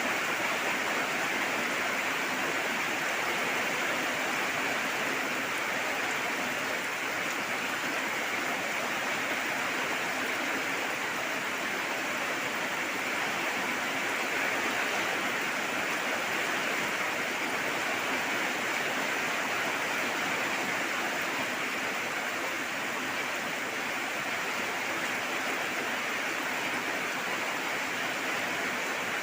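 Steady, even rain falling, a continuous hiss with no let-up or separate drops standing out.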